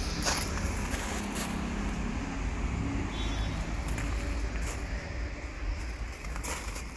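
Footsteps crunching now and then on loose gravel, over a steady low rumble.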